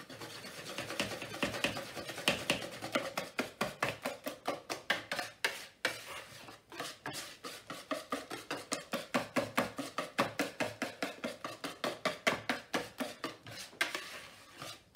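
Wire whisk beating pancake batter in a plastic mixing bowl: a fast rhythmic clatter of about five strokes a second, easing off near the end once the flour is mixed in and the lumps are gone.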